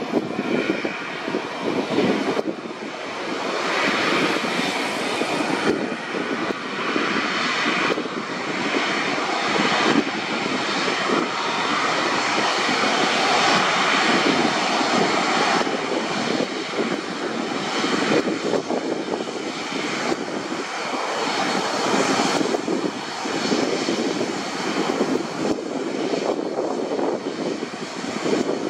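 Airbus A330-300 airliner's jet engines running steadily as it taxis along the runway: a broad rushing noise with a faint high whine above it and no spool-up to takeoff power.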